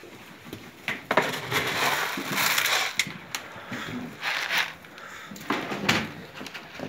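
Irregular scuffling noises and a few sharp knocks as dwarf goats jostle and eat feed from dishes on the barn floor.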